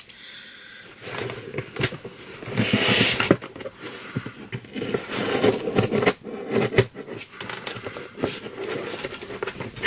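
Cardboard box and packaging being handled and opened by hand: irregular scraping, rustling and clicks, with a longer hissing scrape about three seconds in.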